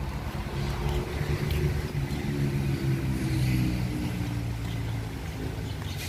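A motor vehicle's engine running steadily with a low hum, its pitch wavering slightly but never rising into a rev.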